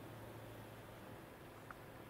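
Near silence: faint room tone with a steady low hum and hiss, and one faint tick near the end.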